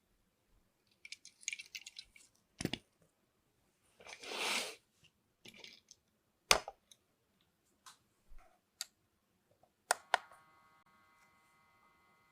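Handling noises of a diecast model unboxing: packaging crinkling, a brief rustling swish about four seconds in, and several sharp clicks and taps of small parts being handled. A faint held tone starts near the end.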